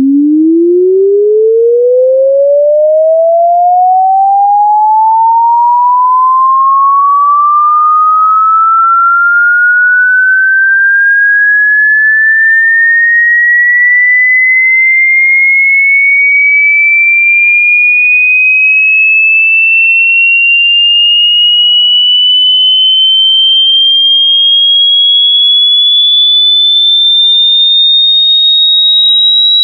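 A single pure sine tone sweeping slowly and smoothly upward in pitch, from a low hum to a high whistle, at a steady loud level.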